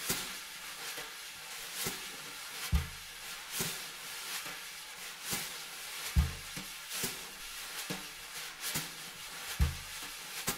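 Wire brushes played quietly on a snare drum in a slow ballad groove: a continuous soft swish of the brush sweeping the head, with a light tap on each beat, a little over one a second. A soft low drum thump falls on every fourth beat.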